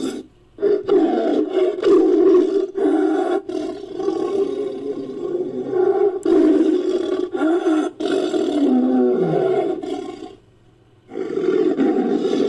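Made-up creature roar built from edited tiger roars and megalodon sound effects, meant as a fictional great white shark. One long roar with brief dips, its pitch falling near the end, then a second roar begins about a second later.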